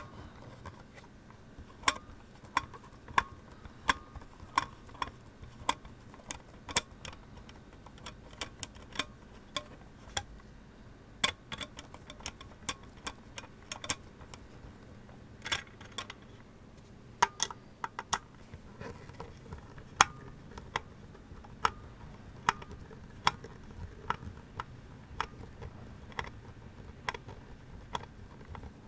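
Screwdriver working the screws out of a removable drive case's end cap: a long run of sharp clicks and ticks, roughly one or two a second with short pauses.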